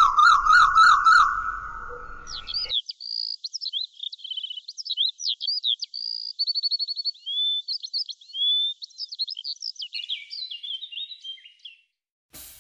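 A songbird singing a quick, varied song of whistles, trills and chirps. For the first two and a half seconds a run of rapid repeated rising-and-falling chirps plays over a faint low noise, which cuts off abruptly.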